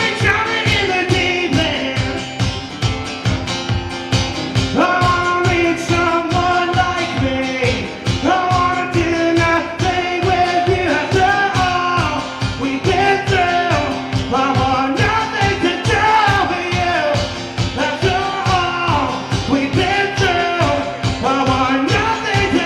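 Live band playing a rock song, a male or female singer's voice carrying the melody over a steady drum beat.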